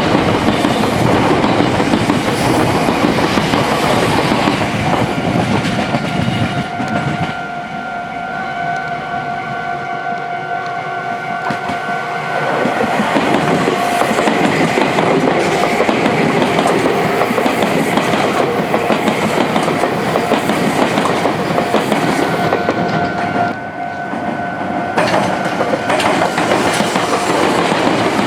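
Meitetsu electric trains running past, wheels clattering rhythmically over rail joints and junction points, easing off for a few seconds about a quarter of the way in before picking up again. A steady high tone runs alongside through most of it.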